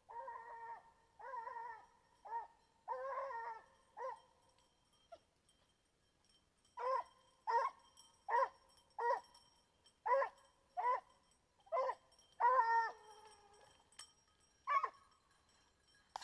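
Griffon bleu de Gascogne hound baying: a run of drawn-out calls, then after a short pause a steady series of short barks, roughly one every three quarters of a second.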